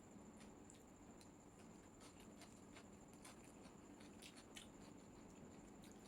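Faint chewing of spicy chicken chow mein, with scattered soft mouth clicks, most of them between about two and five seconds in.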